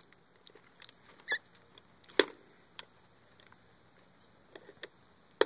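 Scattered light taps and clicks of handling noise against a clear plastic container: a sharper tap about two seconds in and another at the very end, with fainter ticks between.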